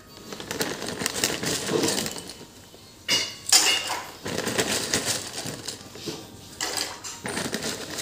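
Plastic pasta packet crinkling as it is handled, in irregular crackly bursts, loudest a little after three seconds in.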